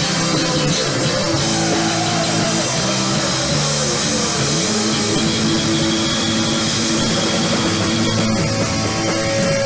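Live rock band playing loud, with electric guitar and drum kit; about a second in, a guitar note slides down in pitch over a few seconds.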